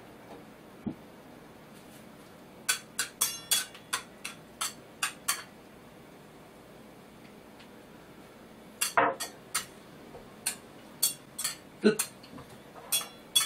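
Metal chopsticks clinking and scraping against a stainless steel bowl. There are two runs of quick, sharp clinks, the second starting about nine seconds in.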